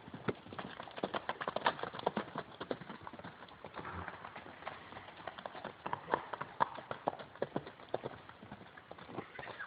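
Hoofbeats of several horses running: many quick, irregular hoof strikes, thickest about a second in and again around six seconds in.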